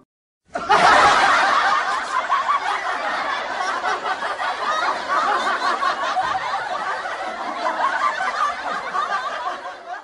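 Laughter sound effect: many people laughing at once. It starts about half a second in and fades out just before the end.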